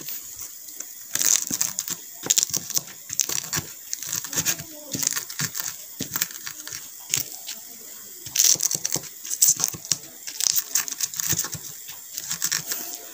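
Wooden pestle crushing and grinding chilies, garlic and salt in a wooden mortar for sambal: irregular crunching and scraping strokes in uneven bursts, the ingredients hard to break down.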